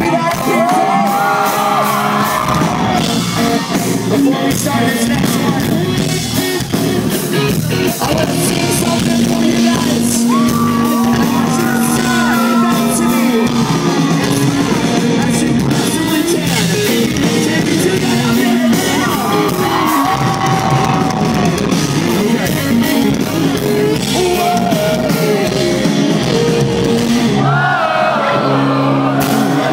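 Live pop-punk band playing with drums, guitars and bass under a male lead singer, with the crowd shouting and singing along near the microphone.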